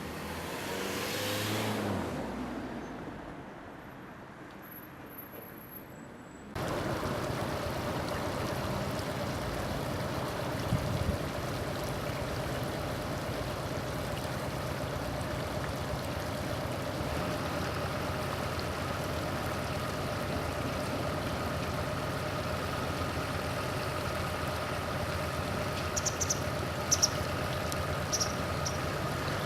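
Steady outdoor background noise, mostly a hum of distant road traffic, which jumps abruptly louder about six seconds in. A few short, faint high chirps come near the end.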